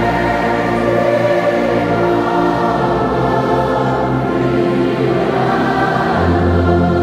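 A large church congregation singing a hymn in sustained chords, accompanied by an orchestra of brass instruments such as trombones and tubas. A deep bass note drops out for most of the passage and comes back in near the end.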